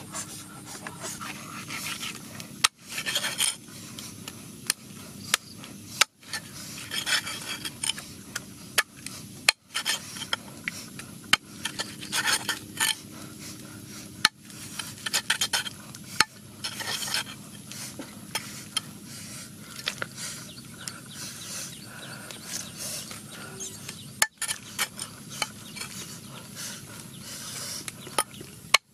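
Heavy cleaver chopping raw chicken on a chopping block: repeated sharp chops at irregular intervals, with rubbing and handling noise between them.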